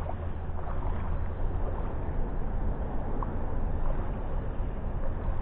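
Steady low rumble and hiss of wind on the camera's microphone, with no distinct events standing out.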